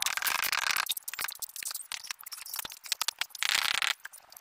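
Hand tool scraping and spreading semi-dry sand-cement mortar over a concrete slab: two gritty scraping strokes, one at the start and one about three and a half seconds in, with scattered clicks and knocks between them.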